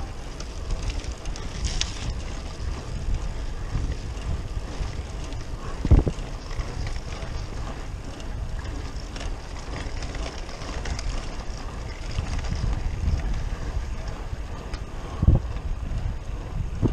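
Wind buffeting the microphone of a cyclist's camera during a hard uphill ride, a steady low rumble. Two sharp knocks stand out, one about six seconds in and another late on.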